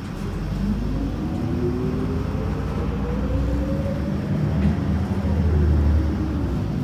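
Mitsubishi Fuso Aerostar city bus pulling away from a stop, heard from inside the cabin. An engine and drivetrain whine climbs in pitch for about four seconds and then falls away over a low engine rumble, which is loudest near the end.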